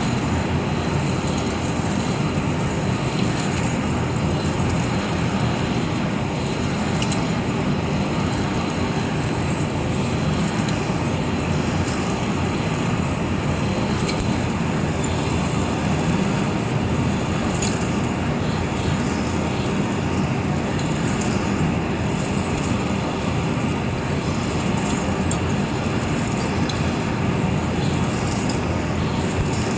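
Large vertical turning lathe running under heavy load: a steady, unbroken low machine drone with faint scattered ticks above it.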